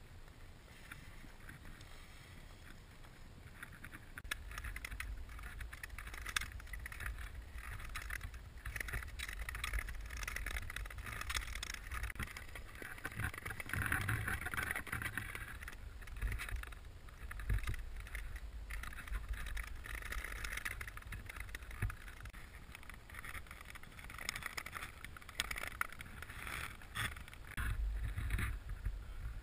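Nordic ice skate blades gliding and scraping over natural ice, a hiss that swells and fades every few seconds with small clicks. A low wind rumble on the microphone runs under it.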